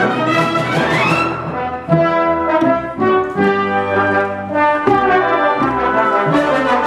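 Symphony orchestra playing classical music, the brass section prominent, with a fast rising run about a second in.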